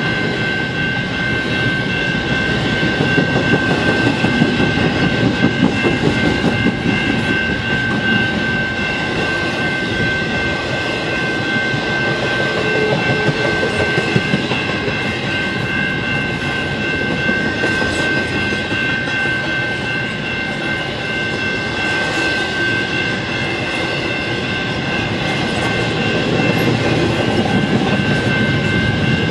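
Double-stack intermodal container cars rolling steadily past, wheels clattering over the rails with a few louder bursts of clatter. Over it, the crossing's General Signals Type 2 electronic bell keeps ringing, as this crossing's bells do after the gates are down.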